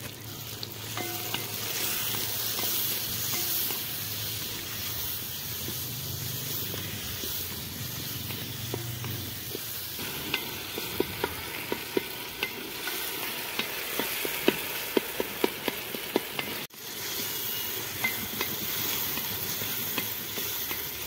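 Onions and tomatoes sizzling in hot oil in a metal pot, stirred with a metal spoon. From about halfway on, the spoon knocks and scrapes against the pot with many short clicks.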